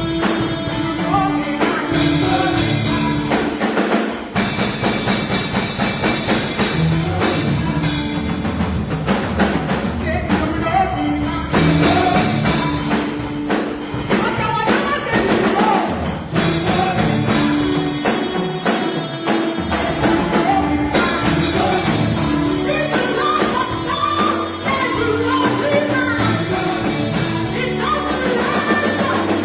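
Live music with singing over a drum kit.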